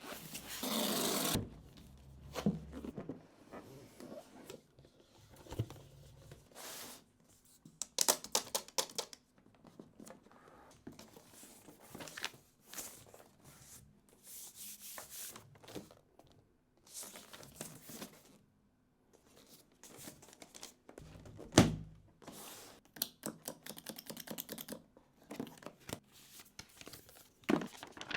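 Unboxing a MacBook Pro: packaging tearing and cardboard and paper wrapping rustling and crinkling, with scattered soft knocks as box parts are handled. There is one louder thump about two-thirds of the way through.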